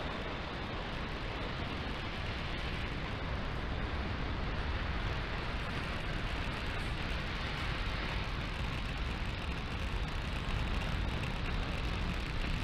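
Falcon 9 first stage's nine Merlin engines during the climb just after liftoff: a steady, deep rumble of rocket exhaust noise.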